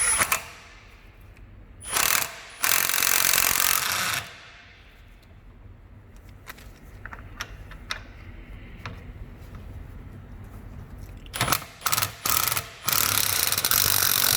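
Cordless impact wrench hammering in bursts as it runs down the top nut on a front strut's piston rod: a short burst and a longer one of about a second and a half about two seconds in, then a few short blips and a final longer burst near the end.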